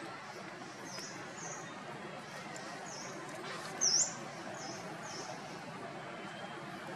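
A series of about six short, high-pitched chirps, the loudest a little past the middle, over a steady background hiss.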